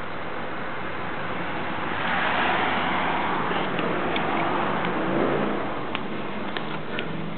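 A steady rushing noise swells over a few seconds and fades again, like a car passing on a nearby road. Faint sharp clicks come in near the end, from the black-throated monitor's jaws working on the rat it is swallowing.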